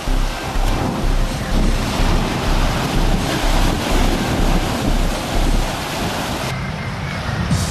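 Surf surging and breaking over a rock shelf in a steady loud wash, with wind buffeting the microphone in low rumbles. About three-quarters of the way through the hiss turns duller.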